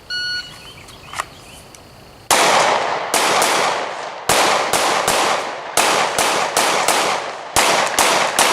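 Shot timer's start beep, a short click, then about two seconds later a pistol fired rapidly, about a dozen shots in short strings with slightly longer gaps between them: the timed Haley 1-5 drill string of 1, 2, 3, 4 and 5 shots.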